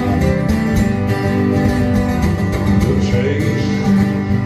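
Two acoustic guitars strumming a country tune live, with a singer's voice coming in near the end.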